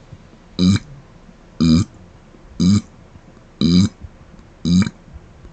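A man burping: five short burps in a steady rhythm, about one a second.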